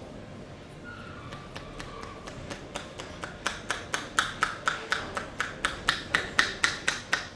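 Rapid, even hand strikes of a barber's percussive massage, about five a second, faint at first and growing louder from about three seconds in.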